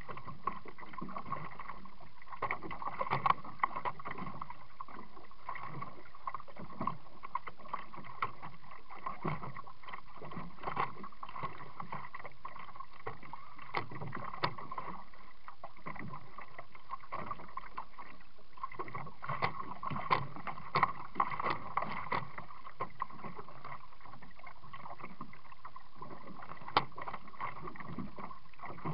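Kayak paddling: irregular splashes and short knocks of the paddle and water against a Pelican 80 kayak's hull, over a steady high hum.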